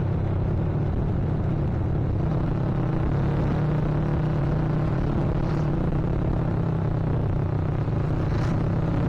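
Yamaha Vixion Advance motorcycle's single-cylinder engine running at a steady cruising speed, its pitch holding level, under a low rumble of wind and road noise on the microphone.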